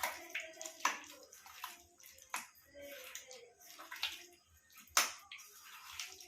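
Hands kneading raw chicken pieces in a thick, wet marinade of egg, cornflour, flour, ginger-garlic paste, soy sauce and vinegar, giving irregular squelching and sticky smacking sounds, the loudest about one, two and a half and five seconds in.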